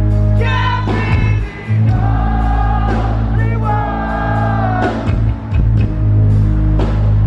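Rock band playing live with sung vocals over a heavy, steady bass and regular drum and cymbal hits.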